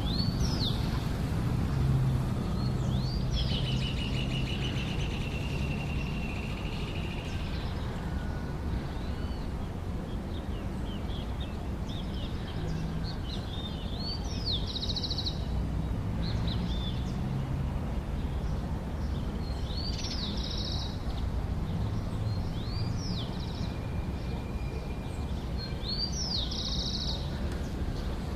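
Outdoor birdsong, likely horneros: one long fast trill a few seconds in, then short rapid rattling calls at intervals. Under it runs a steady low background rumble.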